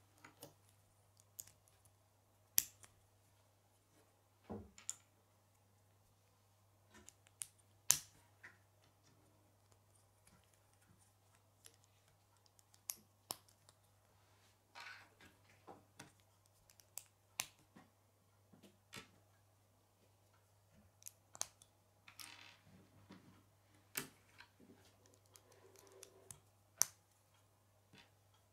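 Plastic K'nex pieces clicking and snapping as they are fitted together and handled: scattered sharp clicks at irregular intervals, over a faint steady low hum.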